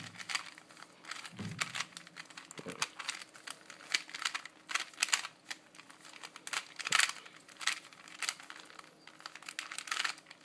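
A Rubik's Cube being scrambled by hand: quick, irregular plastic clicks and clacks as its layers are twisted, several a second.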